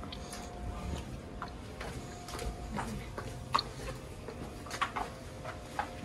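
Footsteps going down a flight of stairs: irregular sharp clicks, about one or two a second, the loudest about three and a half seconds in, over a faint steady hum.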